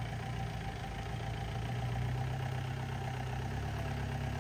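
Off-road 4x4 vehicle engine running steadily at low revs.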